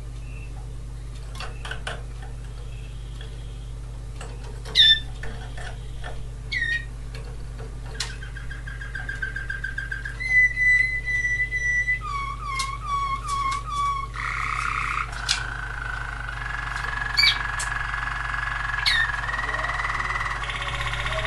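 Waterslager canary singing: a few short calls and quick upward chirps at first, then a fast trill, a held whistle, a run of repeated dropping notes about four a second, and a long rolling, bubbling phrase near the end. A steady low hum runs underneath.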